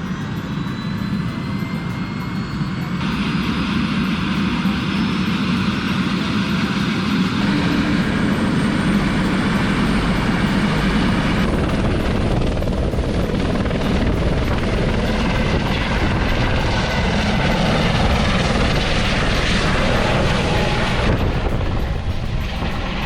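Tour helicopter's turbine engine and rotor running steadily, heard from inside the cabin. The noise grows louder a few seconds in.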